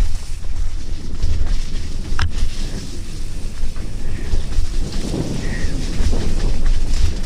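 Mountain bike rolling fast over a rough, wet dirt trail: a heavy low rumble and rattle from the bike-mounted camera, with tyres crunching over dirt and roots. There is one sharp click about two seconds in.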